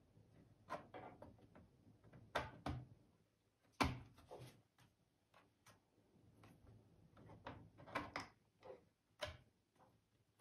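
Plastic retaining clips of a laptop's bottom cover clicking loose as a plastic pry tool works along the seam: a dozen or so irregular, sharp clicks and snaps, the loudest a little under four seconds in.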